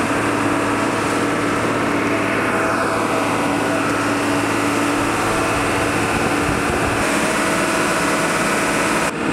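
Sea tractor's engine running at a steady pitch while it wades through the sea, with water rushing and splashing around its submerged wheels.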